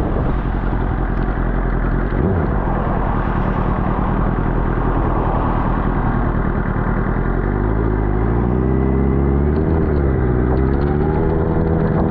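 Suzuki GSX-R600's inline-four engine running under way, half buried in rushing wind and wet-road noise. From about eight seconds in, its note comes through clearly, drops briefly around ten seconds and climbs again.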